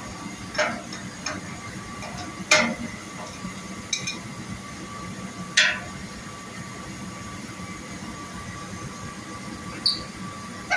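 A wrench working the metal fitting on a liquid nitrogen tank's line, giving about six sharp metallic clinks at irregular intervals. A faint steady high hum runs underneath.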